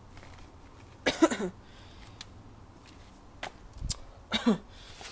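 Two short throat-clearing or grunt sounds from a man, each falling in pitch, about a second in and again near the end, the first the loudest. In between come a few light clicks and a low thud.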